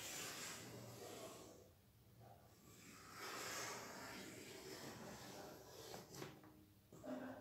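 Chalk drawn across a chalkboard: faint scraping strokes in several separate spells as long curved lines are sketched.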